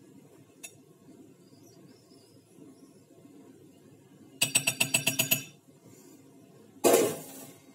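Metal spoon clinking against a glass baking dish: a single faint tap, then about ten quick taps in a second. Near the end comes one louder clank with a short ring.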